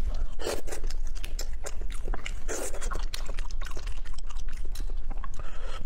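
Hands cracking and pulling apart a cooked lobster's shell coated in chili oil: a quick, uneven run of sharp clicks and crackles with a few wet, sticky tearing sounds, over a steady low hum.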